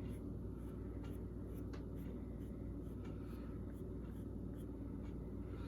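Marker pen scribbling over the face of a metal-bond CBN sharpening stone, marking it so that flattening will show by where the marks are worn away, over a steady low hum.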